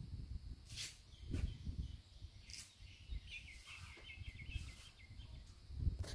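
Outdoor ambience: a low, uneven rumble of wind on the microphone, a few small clicks in the first half, and a bird chirping briefly in the middle.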